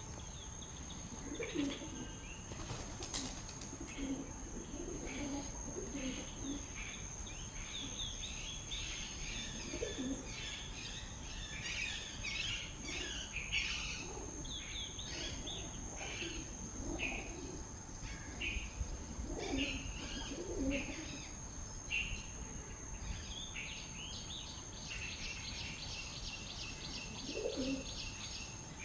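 Many birds chirping and twittering in short, overlapping calls, with occasional lower-pitched calls among them, over a steady high insect drone. Near the end one bird gives a fast, even run of repeated chirps.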